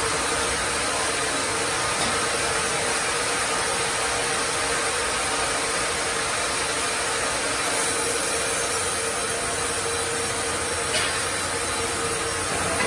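Multi-head vertical band-saw sawmill line running steadily, blades and carriage feed rollers going as timber is fed through, with a steady hum. There is one short click about eleven seconds in.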